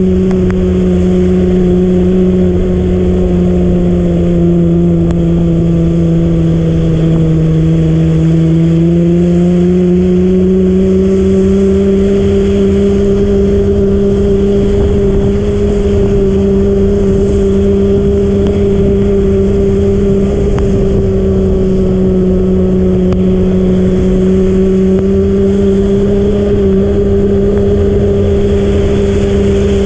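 Bicycle riding along a wet street: a loud steady hum whose pitch sinks a little about a quarter of the way through and then climbs back, over a low rumble of road and wind noise.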